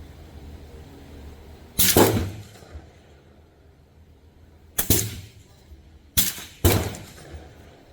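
.22 rimfire rifle firing four shots: one about two seconds in, one about five seconds in, and two close together, less than half a second apart, near the end.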